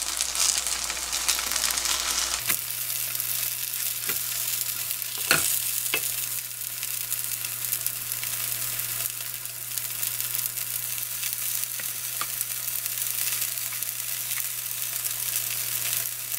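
Kimchi pancakes (kimchijeon) frying in oil in a pan, a steady sizzle and crackle like the sound of rain, with a few sharper pops between about four and six seconds in and once more near twelve.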